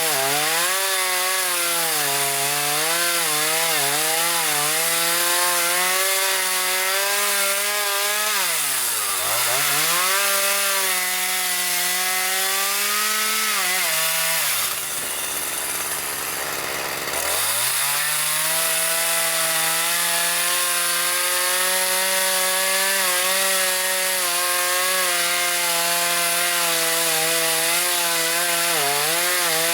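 Gas chainsaw running at high revs as it cuts slab wood into firewood lengths, its engine pitch wavering under load. About nine seconds in the revs dip sharply and recover. Around fifteen seconds the throttle is let off to a low idle for a couple of seconds before it revs back up.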